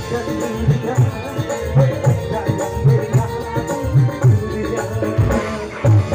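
Live band music: a male singer on a microphone over electric guitar, keyboard and bass, with a hand-drum beat giving a strong low thump about once a second.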